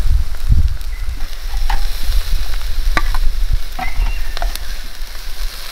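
Food sizzling on a camp barbecue, with metal utensils clicking and scraping against the pan several times, over a low rumble that eases off about halfway through.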